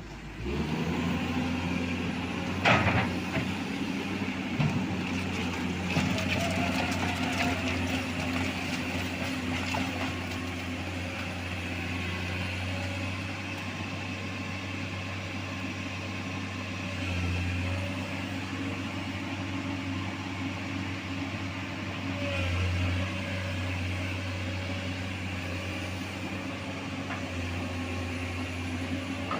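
Heavy diesel engine of a dump truck or excavator running steadily under load, with a sharp knock about three seconds in.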